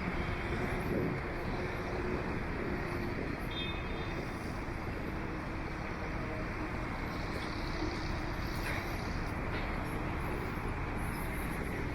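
Steady street traffic noise: a continuous rumble of vehicles and engines, without a break.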